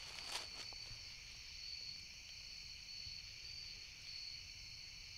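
Steady high-pitched chorus of night insects, crickets and katydids, with a single faint click just after the start.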